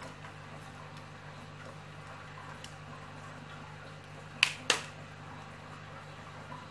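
Two sharp plastic clicks about a quarter of a second apart, a little past the middle, as the 3D-printed ABS battery clip holding a sealed lead-acid battery is pushed and snapped onto the pole. A steady low hum runs underneath.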